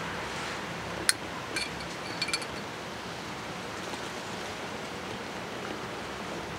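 Four light clinks of a metal spoon in the first two and a half seconds as distilled water is poured over it into a car battery's cell, over a steady hiss.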